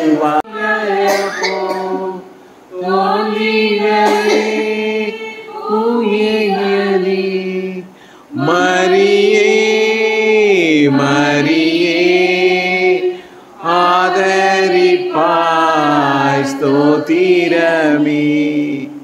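Voices singing a Tamil devotional hymn unaccompanied, in long held phrases with short pauses between them.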